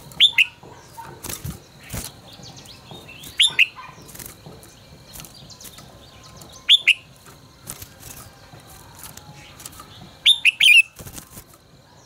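Red-whiskered bulbul singing short, loud, clear phrases, four bursts about three seconds apart, the last a longer run near the end. Scattered faint clicks and knocks run between the phrases.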